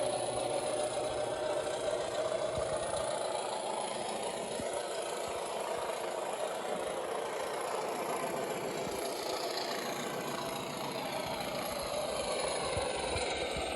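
DCC sound decoder in an Accurascale model of NIR Hunslet diesel locomotive 103 'Merlin', playing a diesel engine idling steadily through the model's small onboard speaker. Near the end a high tone slides down in pitch.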